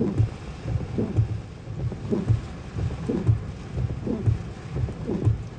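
Heavy rain on a car, heard from inside the cabin, with the windshield wipers sweeping in a steady rhythm of about one low thump a second.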